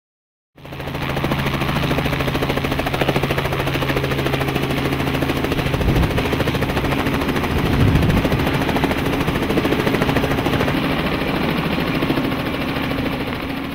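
Robinson R44 Raven II helicopter hovering close by: the rapid, steady chop of its main rotor over the drone of its engine, starting about half a second in.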